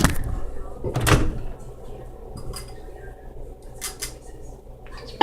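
Two sharp knocks, one at the start and one about a second in, then quieter clicks and handling sounds: a microwave oven door being opened and shut.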